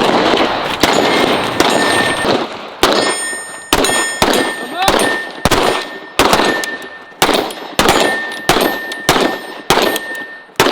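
Handgun shots fired in a long, steady string, about one to two a second, each followed by a short metallic ring from the steel targets being hit.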